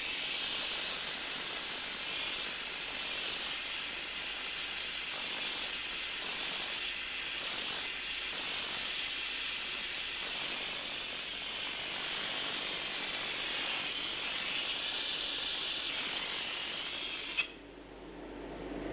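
Steady hiss of a gas torch flame heating an aluminum radiator joint for brazing, with a rough crackling edge; it cuts off suddenly with a click near the end.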